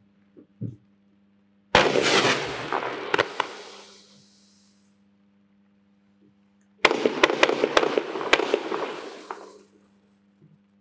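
WECO "Frequency" 46-shot, 20 mm fireworks compound firing two volleys, one nearly two seconds in and the second about five seconds later. Each volley starts suddenly with sharp cracks and fizzes out over two to three seconds; the second has several separate cracks in quick succession.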